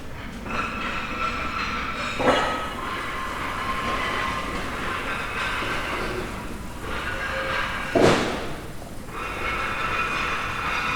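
Construction-site ambience: a steady machinery hum with high whining tones, broken by two loud bangs, one about two seconds in and a bigger one about eight seconds in.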